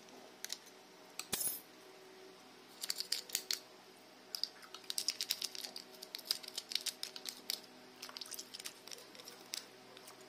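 Plastic toothbrush scrubbing the inside of a crab's hard shell, wet from the basin: a few scrapes, then from about three seconds in, runs of quick scratchy strokes.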